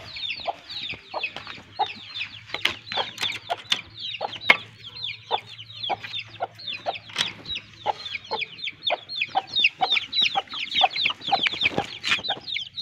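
Desi chickens: a brood of chicks peeping constantly in quick, high, falling chirps, several per second, with hens clucking lower among them.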